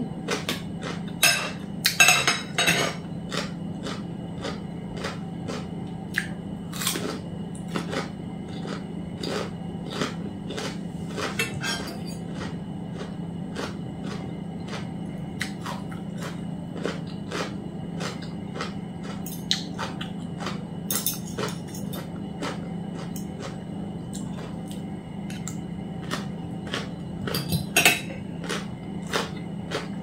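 Metal spoon and fork clinking and scraping on a plate while eating, with chewing, over a steady low hum. The clicks come in clusters, busiest about one to three seconds in and again near the end.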